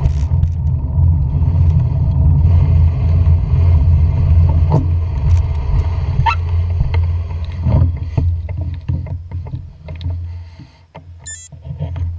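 A low, steady engine rumble that fades away near the end, with a few faint clicks.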